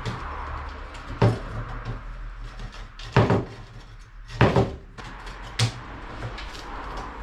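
Four metallic knocks and clanks as old welded steel mesh is wrenched and torn out of a fire pit's spark guard frame. The second and third knocks, in the middle, are the loudest.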